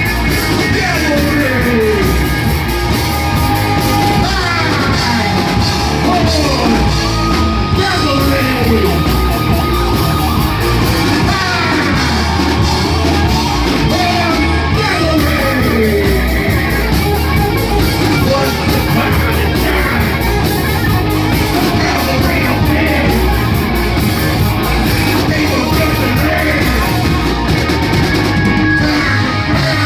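Rock band playing live and loud, with heavy drums, bass and distorted electric guitar and yelled singing. Falling pitch slides recur every few seconds.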